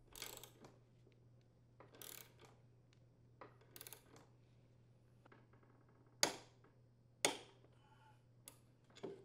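Torque wrench ratcheting on a lawn mower's blade mounting bolt: scattered short metallic clicks and ticks, with two louder sharp clicks a second apart past the middle.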